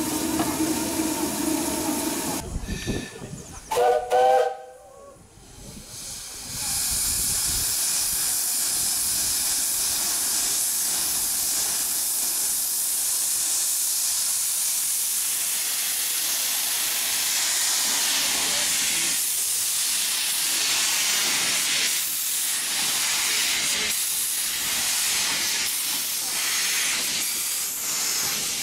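Narrow-gauge steam locomotive giving a short whistle blast about four seconds in, then hissing steam steadily.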